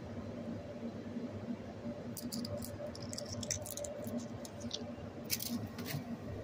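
Handling noise from a hand-held camera being moved about: soft rubbing over a faint steady hum, with clusters of light clicks and scrapes about two seconds in and again near the end.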